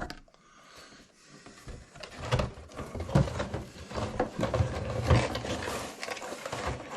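Metal detector parts and their packaging being handled: irregular rustling, clicks and light knocks. Starts quiet and grows busier about two seconds in.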